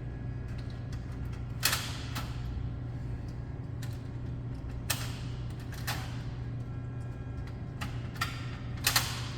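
Aluminium soda cans knocking and clinking as they are set down and pushed into the rows of a vending machine, about six sharp knocks spaced a second or more apart, over a steady low hum.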